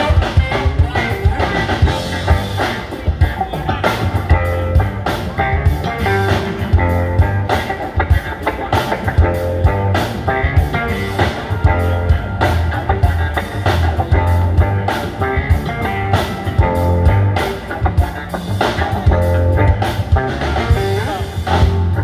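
Live band playing an instrumental groove on keyboards, electric guitar, bass guitar and drum kit, with a steady beat and a strong bass line.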